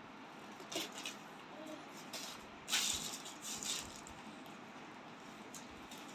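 Plastic carry bags and paper rustling and crinkling as a toddler handles them, in short irregular bursts, the loudest about three seconds in.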